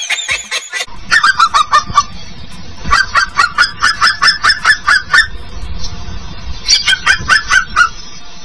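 Rapid, high-pitched honking calls from an animal, about six a second, in three runs with short pauses between, the longest run about two seconds, over a low rumble.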